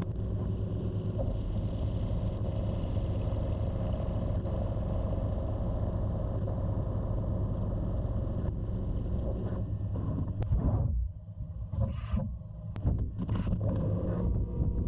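CNC vertical mill's end mill cutting a metal block under flood coolant: a steady machining noise with a few constant tones. About eleven seconds in the cut breaks off, leaving a few short bursts of noise.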